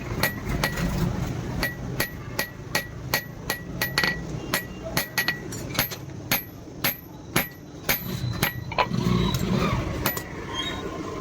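Blacksmith's hand hammer striking steel on an anvil in a steady rhythm of about two to three blows a second, each blow ringing briefly: hand forging of a blade.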